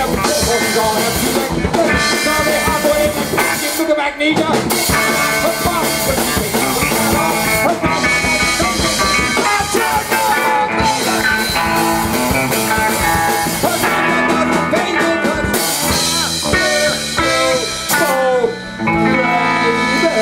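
Punk rock band playing live: loud guitar over a drum kit.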